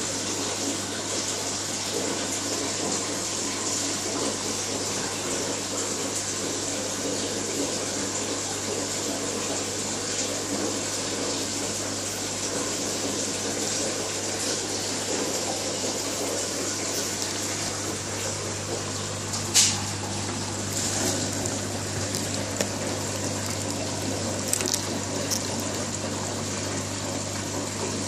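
Steady rush of water circulating through an aquarium's standpipe overflow and plumbing, over a constant low hum. A single sharp click sounds about twenty seconds in, followed by a few faint ticks.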